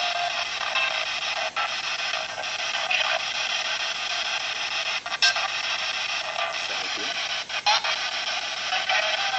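Handheld spirit box (ghost box) sweeping radio stations: a steady hiss of static broken by a few brief clicks and dropouts as it jumps between stations.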